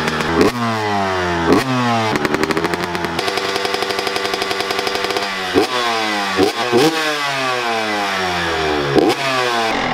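Honda CR125 single-cylinder two-stroke dirt bike engine, just started and warming up, revved in sharp throttle blips that fall back toward idle about six times, with the revs held steady for a couple of seconds in the middle.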